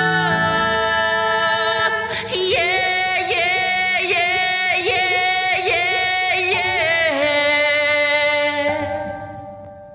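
A woman singing a musical-theatre song in a full voice, with bending, ornamented phrases over sustained musical accompaniment. The music fades out near the end.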